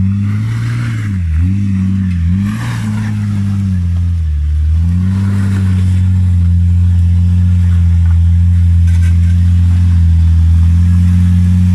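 Off-road 4x4's engine working up a steep rocky climb. The revs dip and pick up again a few times over the first seconds, then hold steady under continuous throttle.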